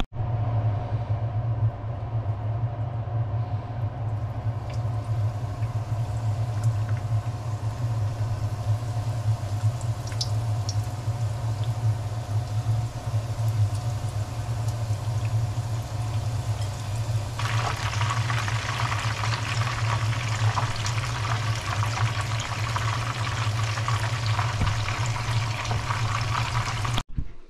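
Cornflake-crumbed Scotch eggs frying in oil in a frying pan, the oil bubbling and sizzling with fine crackles, over a steady low hum. The sizzle turns louder and more crackly a little past halfway through.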